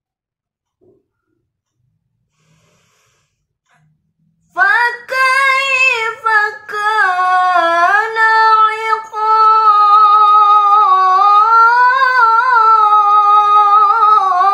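A teenage girl's voice reciting the Quran in the melodic tilawah style. It follows a silent pause of about four and a half seconds, then goes on in long held notes that bend and turn in ornaments.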